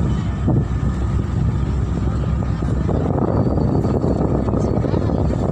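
A boat's engine running steadily under way, mixed with a constant rush of water and wind.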